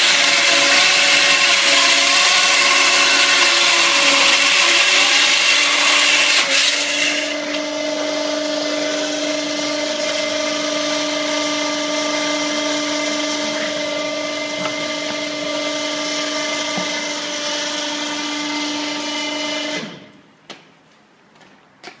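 Hydraulic diamond chainsaw cutting into a concrete block: a loud, dense grinding with a steady whine. About seven seconds in it drops to a quieter, even hum with a clear steady tone, then cuts off suddenly near the end, followed by a few faint clicks.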